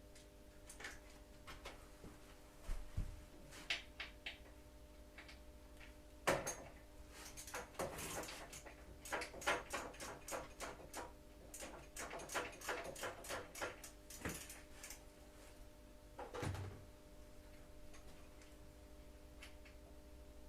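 Hand tools at work on a motorcycle being taken apart: scattered metallic clicks and knocks, then a dense run of clicks and clinks through the middle, and a dull thump about sixteen seconds in, over a faint steady hum.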